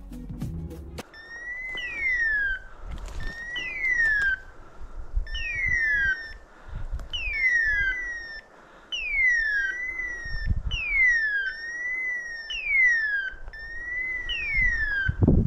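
Hawk-scream locator call of a hunting dog's beeper collar, repeating about every two seconds, eight times: each a short up-and-down chirp followed by a falling screech. Wind rumbles on the microphone beneath it.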